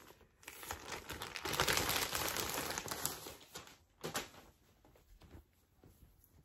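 Rustling and crinkling of clothing being handled and pulled on, lasting about three seconds, then a single soft knock about four seconds in.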